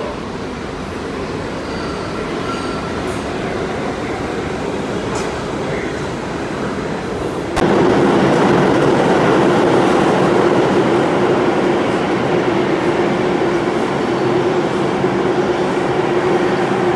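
NYC subway train running past on the tracks beyond the platform: a steady rumble of wheels on rail that slowly grows, then turns abruptly louder about seven and a half seconds in, with a steady hum held over it to the end.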